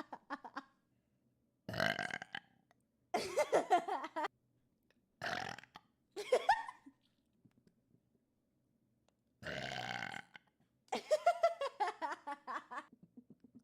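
A person burping about six times, with short silences between. Some burps are short and others are drawn out for a second or two.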